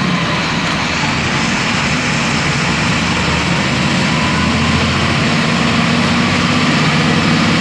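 Volksbus 17.230 EOD city bus engine running, a steady drone that holds on through the whole stretch.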